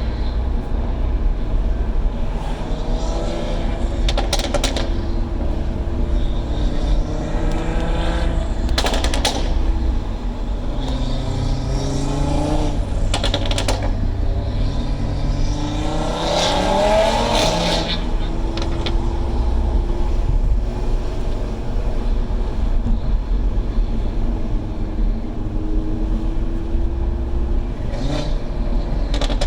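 A car being driven on the road, its engine note climbing and dropping again and again through the gears, with a few brief sharp noises along the way.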